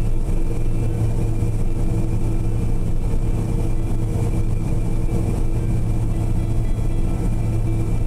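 Combine harvester heard from inside its cab while cutting wheat: a steady drone of engine and machinery with a constant low hum and a faint high whine.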